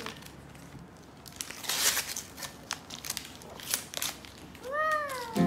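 Paper crinkling and tearing in irregular bursts as a gift's wrapping is pulled off by hand.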